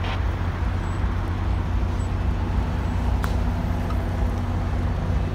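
Road traffic: the steady low rumble of car and truck engines moving slowly past, with one brief click about three seconds in.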